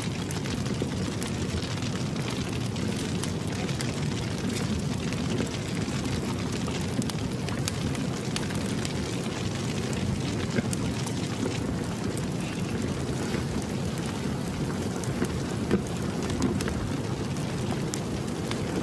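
Large wooden bonfire burning: a steady low rushing of flames with frequent small crackles and pops throughout.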